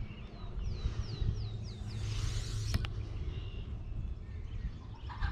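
A wild bird singing a quick run of about six high, downslurred notes, followed a little before three seconds in by a single sharp click, over a steady low rumble.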